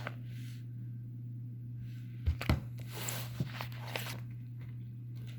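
Handling noise as a thick paper instruction manual is moved about: two dull knocks a little after two seconds in, then a short papery rustle and a few light clicks, over a steady low hum.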